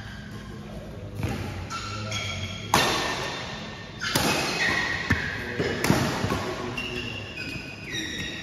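Badminton rally: rackets smacking the shuttlecock in sharp hits, four or five in a few seconds, the loudest about three seconds in, ringing in a large hall. Short high squeaks from shoes on the court mat come between the hits.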